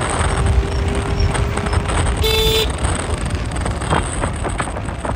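Wind rush and road rumble from an electric scooter ridden at about 70 km/h, with a short horn toot about half a second long a little over two seconds in.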